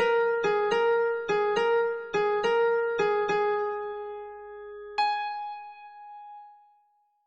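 Karaoke guide melody played on a synthesized electric-piano tone, with no singing. A run of about eight quick notes is followed by a pause, then one last note about five seconds in that rings out and fades away.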